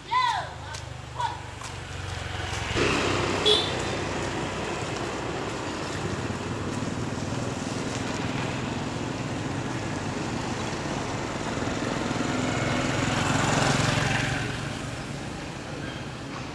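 A motor vehicle engine running steadily with road noise, swelling louder about thirteen seconds in. A brief high call sounds at the very start.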